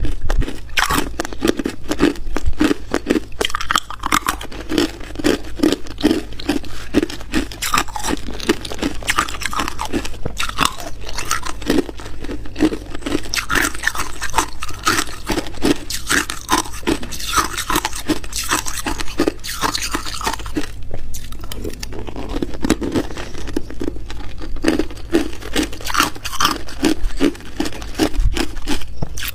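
Hard clear ice being chewed and crunched right at a clip-on microphone: a dense, continuous crackling crunch, broken by brief pauses twice in the second half.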